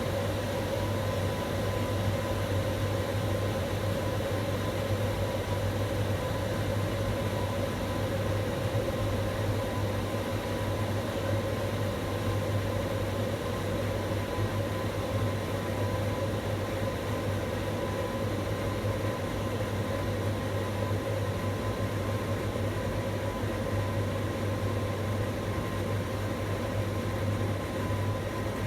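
Steady electric hum with a thin high whine inside a tower crane's operator cab while the crane runs, with no knocks or changes.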